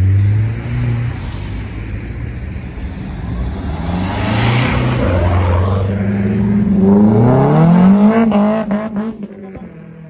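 Car engines running, with one car accelerating away, its revs climbing about seven seconds in. A few sharp cracks follow, and then the engine sound fades.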